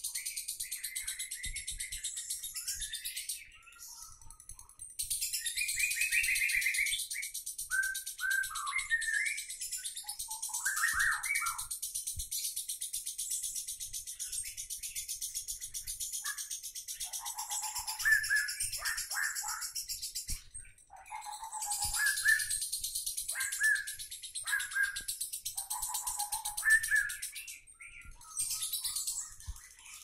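Lovebird 'ngekek': a long, continuous, very rapid high-pitched chattering trill, with short lower chirps and squeaks woven through it. It breaks off briefly about three and a half seconds in, again around twenty seconds in, and near the end, then starts up again.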